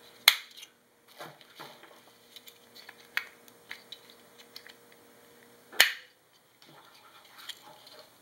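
Rechargeable Eneloop AA batteries being fitted into the plastic AA cartridge of a camera battery grip: a scatter of small clicks and rattles, with two sharp, loud clicks, one near the start and one about six seconds in.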